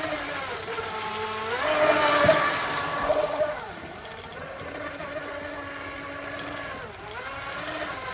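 Atomic 27.5-inch RC catamaran's water-cooled brushless motor and propeller whining as the boat runs on the water. Its pitch drops and climbs back about three times as the throttle is eased and opened again, and it is loudest about two seconds in.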